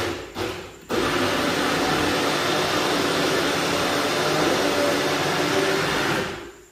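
Personal bullet-style blender blending watermelon: a short run that cuts off, a brief pulse, then about five seconds of steady running that winds down near the end.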